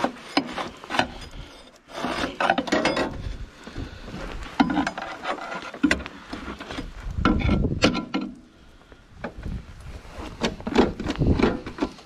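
Scraping, rubbing and knocking at packed ice and snow in a snowblower's auger housing, worked at by hand and with a bar, in irregular bouts with sharp clicks. An ice build-up has jammed the auger so it will not turn.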